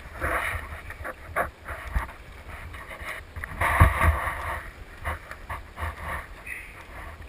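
Choppy sea water sloshing and slapping against a kayak hull in irregular swells, with a few heavier thumps and wind buffeting the microphone.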